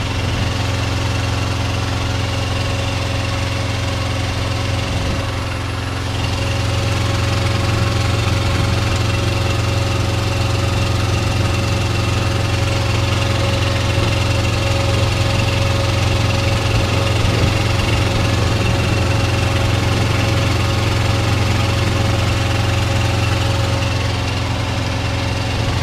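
A truck engine idling steadily: an even low drone with a faint constant whine above it. The drone dips slightly for a moment about five seconds in.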